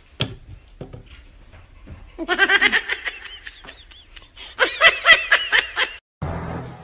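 High-pitched laughter in two bouts of quick giggles, about two seconds in and again near five seconds.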